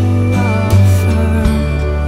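Background music: a pop song with a steady low bass, drum hits and a melodic vocal line.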